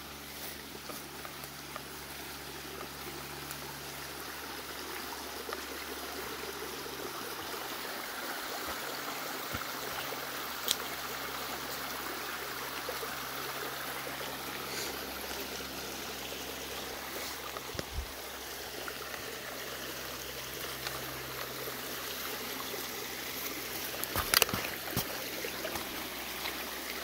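Small woodland creek running and trickling steadily, slowly growing a little louder. A sharp knock about eleven seconds in and a louder cluster of knocks near the end.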